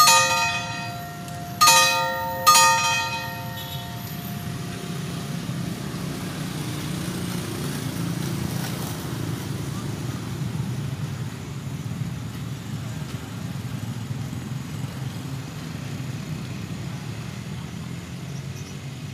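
A level-crossing bell struck three times in about two and a half seconds, each stroke ringing and fading, followed by a steady low rumble of road vehicles at the crossing.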